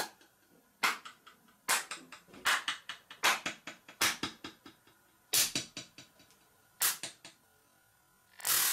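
Sharp hand claps close to a microphone, about seven single claps at uneven spacing, each trailing off in a quick echo. A longer, noisier burst comes near the end.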